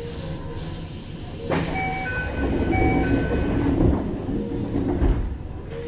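Passenger doors of a Toei 5300-series train closing at a station platform. A two-tone door chime sounds twice while the doors slide shut with a hiss, and they meet with a thud about five seconds in.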